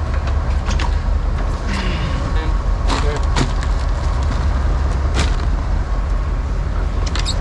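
Steady low rumble of a fishing boat under way, with wind on the microphone, and a few sharp knocks about three and five seconds in.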